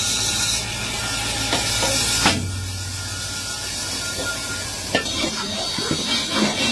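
Steady workshop hiss with a low hum; the background changes abruptly about two seconds in with a single knock. From about five seconds in, a run of short hammer taps on a metal pan handle resting on a steel block.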